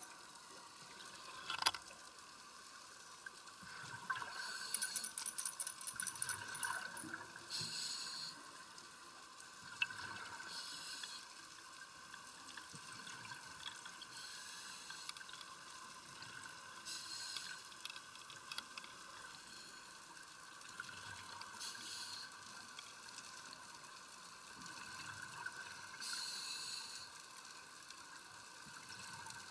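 Scuba regulator exhalation bubbles, heard underwater: a burst of bubbling every few seconds over a steady faint hum.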